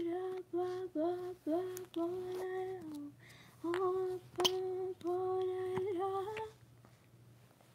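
A girl singing a tune alone with no accompaniment, in short held notes at much the same pitch, stopping about six and a half seconds in. A sharp click comes about four and a half seconds in.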